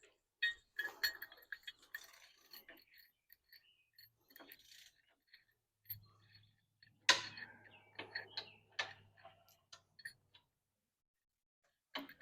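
Metal hand tools and bolt hardware clicking and clinking during winch mounting work. The loudest sound is a sharp metal clank about seven seconds in, and a faint low hum runs for a few seconds in the middle.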